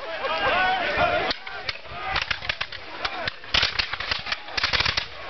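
Ragged volley of black-powder muskets from a line of redcoat soldiers: many sharp shots in quick succession, bunched past the middle and again near the end. Voices call out over the first second or so.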